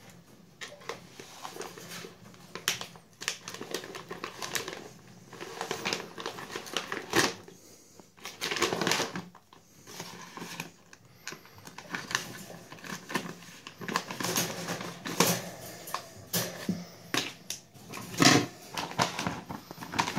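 Scissors snipping through the top of a plastic-foil pet-food bag in a run of irregular sharp cuts, with the packaging crinkling. Near the end the bag is pulled open by hand, rustling.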